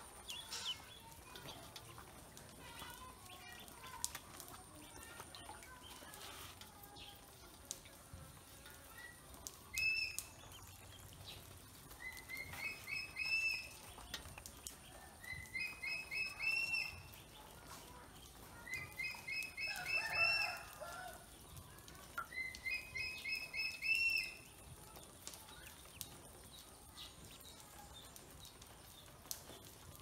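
Pekin ducklings peeping: quick runs of short, rising, high-pitched peeps, coming in several bouts through the middle of the stretch, with softer peeps in between.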